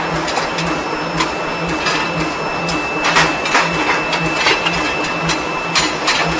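Forging machinery running: a steady low hum that pulses about twice a second, a constant high tone, and irregular sharp metallic knocks.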